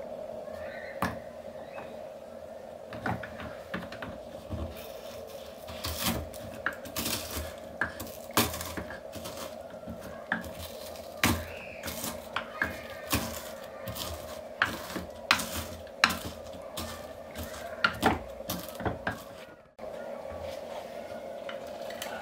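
Wooden pestle pounding and crushing Ferrero Rondnoir chocolate pralines in a bamboo mortar: irregular knocks and crunches, over a steady hum.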